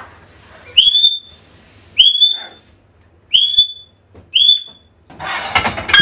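African grey parrot whistling: four short, loud whistles about a second apart, each sweeping up sharply and then holding. A harsher, noisy call follows near the end.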